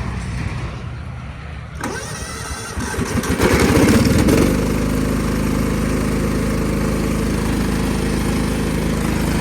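Cub Cadet HDS 2135 riding mower engine cold-started with the key. Under a low steady hum, a click comes about two seconds in, then a second or so of starter cranking. It catches with a loud rev and settles into a steady run.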